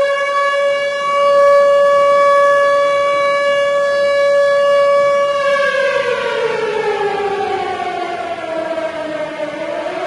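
Civil defense siren wailing. It holds one steady tone for about five seconds, then slowly falls in pitch, and begins to rise again just before the end.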